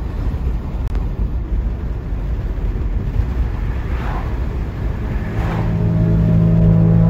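Road noise inside a moving car: a steady low rumble of tyres and engine, with a low hum growing a little louder near the end.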